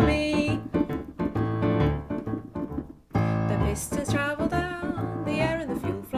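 Digital piano keyboard playing chords over a repeating bass line. The playing drops out briefly about three seconds in, then resumes.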